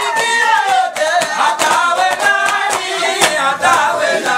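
Men singing a Swahili qaswida: a lead male voice on microphone carrying a wavering melody, with men's voices joining in, over sharp, regular percussive beats.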